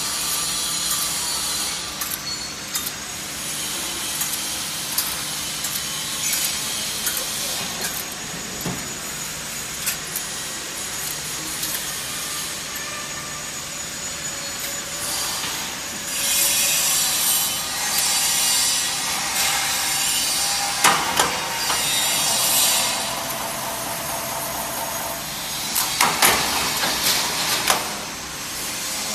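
Bonnell spring assembly machine running: a steady mechanical hiss with scattered metallic clicks, getting louder and hissier in a stretch after the middle and again near the end.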